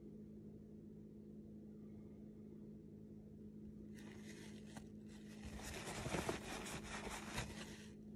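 Coffee maker running with a steady low hum, joined about four seconds in by a hissing, crackling sputter that swells and then stops shortly before the end, like hot water spitting through the brewer.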